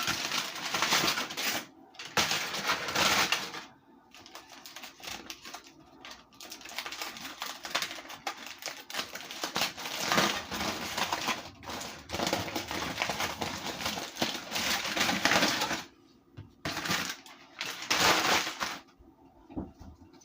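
Bursts of dense, crisp crackling and clicking from dry baked cornstarch being handled and broken, starting and stopping several times.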